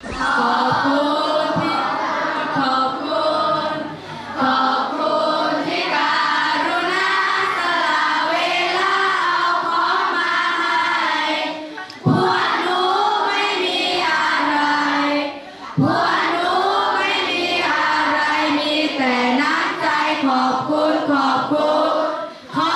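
A group of voices singing a song together, choir-like, with musical accompaniment. The singing starts abruptly and breaks off briefly about twelve and sixteen seconds in.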